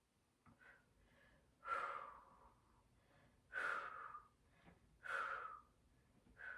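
A woman's short, forceful exhales while she holds a side plank: three strong breaths out about a second and a half apart, with fainter breaths between them.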